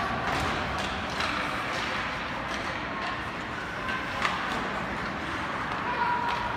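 Ice hockey play in an arena: a steady rush of skates on the ice with scattered sharp clacks of sticks and puck, the sharpest about four seconds in, and a few brief calls from players.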